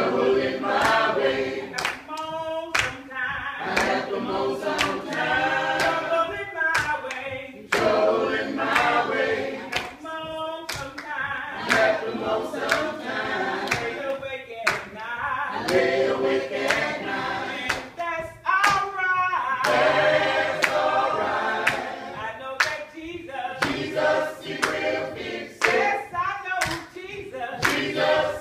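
A small group of voices singing a gospel song together, with steady hand-clapping on the beat.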